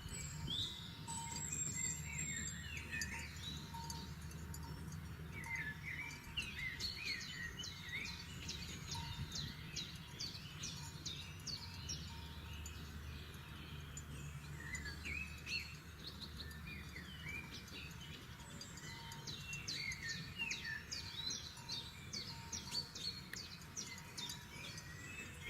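Forest birds singing, several at once, in quick runs of high chirps and trills that come in two busy stretches, over a steady low rumble.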